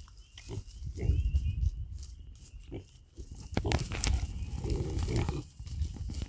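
Hereford–Berkshire cross piglets grunting in short, repeated grunts. From about halfway in, straw bedding rustles and crackles.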